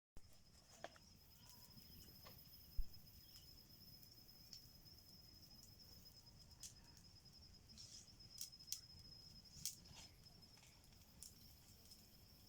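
Faint night chorus of frogs and insects: a steady high-pitched pulsing trill with scattered short chirps. A single low thump comes about three seconds in.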